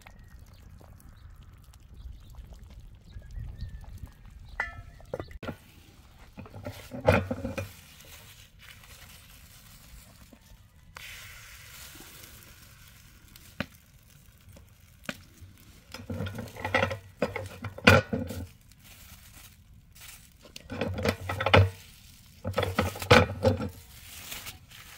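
Cooking handling sounds: a ladle in a pot of soup, then a metal tortilla press and its plastic sheet being handled. Several loud bursts of pitched calling, each one to two seconds long, break in at intervals and are the loudest thing heard.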